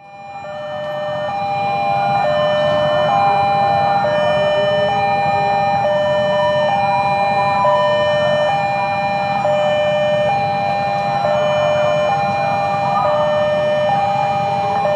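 Railway level-crossing warning alarm sounding for an approaching train: two electronic tones alternating, each held about a second, over a low rumble. It fades in over the first two seconds.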